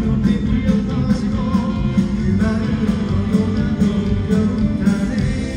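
A song performed live: band accompaniment with guitar, and a singer's voice over it.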